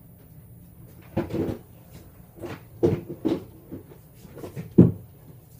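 About five dull knocks and thumps at uneven intervals, the loudest near the end, like a cupboard or door being handled or someone moving about.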